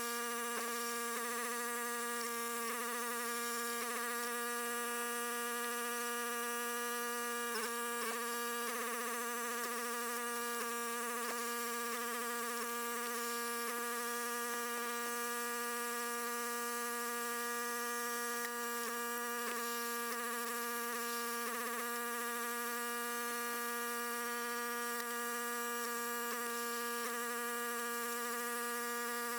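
Log splitter running with a steady, unchanging buzzing hum, holding one pitch throughout.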